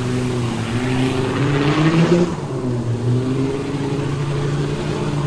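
Off-road 4x4 truck's engine revving hard as it drives into a muddy bog hole, the revs climbing to about two seconds in and then falling back.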